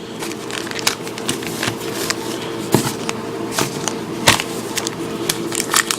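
Trading-card foil packs being handled: scattered clicks and crinkles of the wrappers over a steady low hum.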